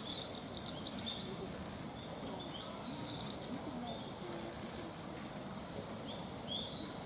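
Small birds chirping, a scatter of short high calls in clusters, over a steady background hiss.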